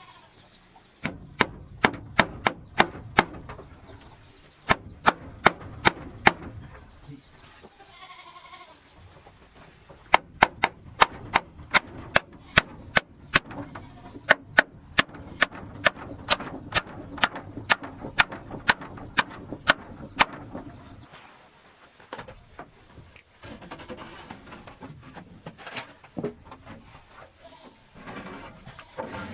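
Hammer blows in quick runs of several strikes, about three a second, with pauses between the runs.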